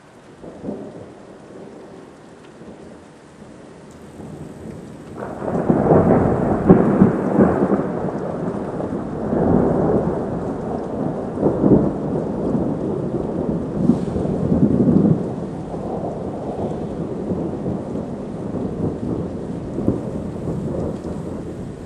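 Thunder over rain: a faint rumble at first, then a sudden loud crack about five seconds in that rolls on in uneven waves for some ten seconds and slowly dies away.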